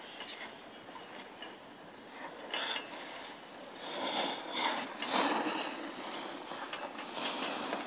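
Chairlift running, heard from the chair: a steady mechanical rushing and rubbing, with louder surges about two and a half, four and five seconds in.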